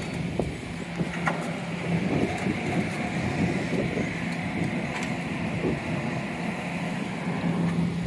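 Metro-North M7A electric multiple-unit train standing at the platform with its doors open, its onboard equipment giving a steady low hum, with a few small clicks.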